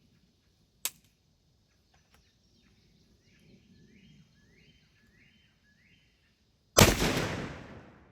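A sharp click about a second in, a bird calling five times in a row, then a single loud blast from a 12-gauge Mossberg 940 Pro semi-automatic shotgun firing a 1 oz #3 TSS load, dying away over about a second.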